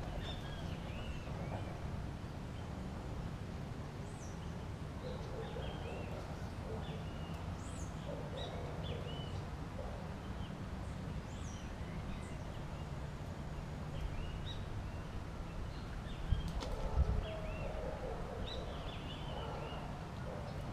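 Birds calling in short, repeated chirps and whistles over a steady low rumble, with a few knocks about sixteen seconds in.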